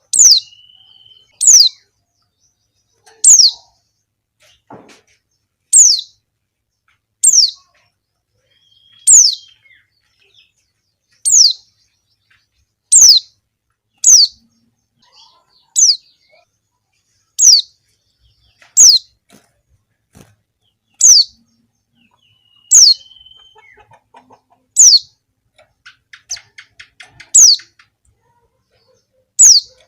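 Female white-eye (pleci) calling: a short, sharp, high note that drops in pitch, repeated every one and a half to two seconds, with a faint quick trill near the end. This is the female call that is used to draw males into song.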